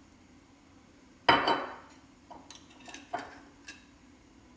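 Metal fork knocking and clinking against a glass baking dish while mixing a runny egg and yogurt batter: one louder knock about a second in, then a few lighter clinks.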